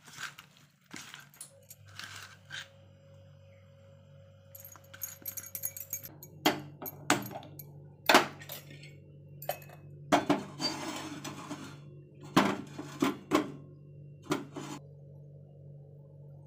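Hands squishing fish in a steel bowl at first, then metal cookware clanking and clinking on a gas stove: about eight sharp metallic knocks in the middle stretch as the iron tawa is handled. A steady low hum runs underneath.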